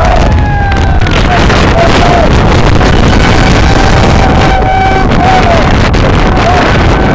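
Strong wind buffeting the microphone with a heavy rumble. Over it, voices whoop and hold long cheering calls, some drawn out for a second or more.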